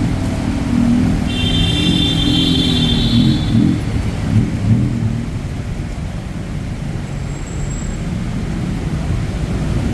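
City street traffic on a wet road: a steady low rumble of passing vehicles. A high-pitched whine sounds for about two seconds near the start, and wavering lower tones come and go in the first half.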